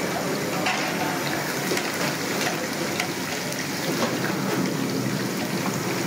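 Quail pieces deep-frying in a kadai of hot oil: a steady sizzle and bubbling, with scattered sharp crackles.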